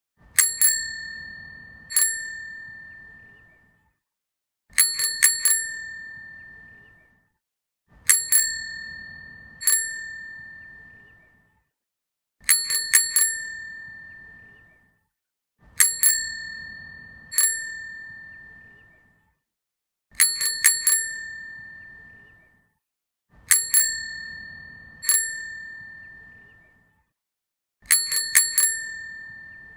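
Bicycle bell rung again and again: a quick burst of three or four dings followed by a single ding, the pattern repeating about every four seconds. Each ring dies away slowly.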